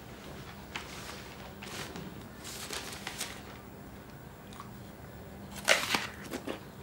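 A crunching bite into a crisp apple near the end, followed by a few smaller crunches. Before it, softer rustling and handling noises.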